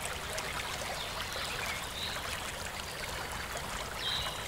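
A pan of onion and paprika sauce with water simmering on the heat: a steady, even bubbling with faint ticks.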